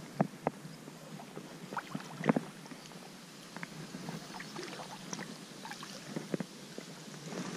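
Faint steady hiss with scattered small clicks and knocks, a dozen or so spread irregularly through, typical of water and handled gear at a riverside.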